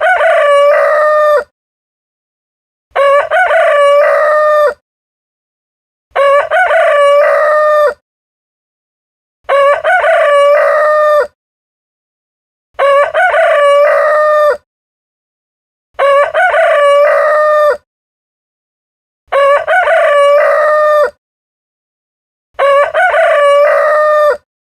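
Rooster crowing cock-a-doodle-doo, the same crow repeating about every three seconds with silence in between, eight crows in all.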